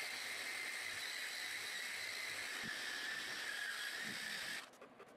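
Random orbital sander fitted with a terry cloth bonnet running steadily with a high whine and hiss, buffing excess oil finish off a walnut slab. It stops abruptly near the end, leaving a few faint clicks.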